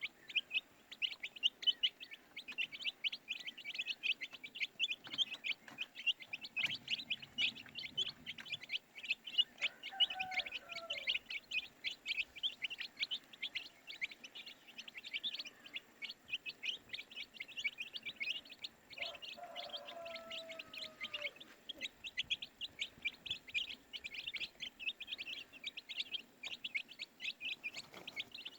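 A group of baby chicks peeping continuously, a dense stream of rapid high-pitched chirps. Twice, about a third and two thirds of the way through, a lower falling call sounds briefly over them.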